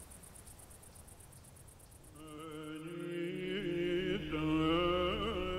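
Near silence at first, then soundtrack music fades in about two seconds in: a slow, low chant with long held notes and small turns in the melody.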